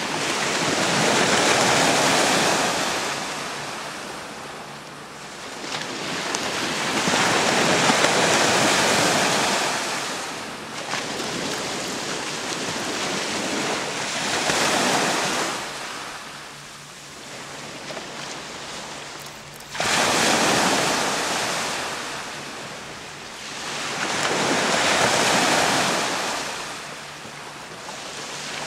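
Water rushing and churning against a rock wall after an underwater rock plug blast. The rushing swells and fades about every five or six seconds like surf, with one sudden surge about twenty seconds in.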